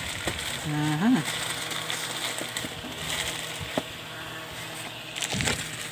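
Plastic packaging crinkling and rustling as a boxed item is handled, with a short hummed voice sound rising in pitch about a second in and a sharp click near the middle.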